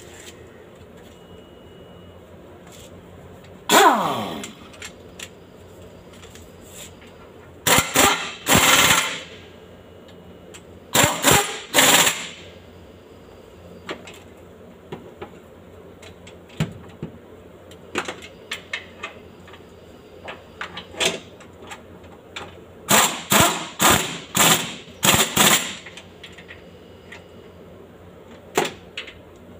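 Pneumatic impact wrench rattling in short bursts on bolts, each about a second long. The first burst ends in a falling whine as the tool spins down, and a quick run of short bursts comes near the end. Small tool clinks fall between the bursts.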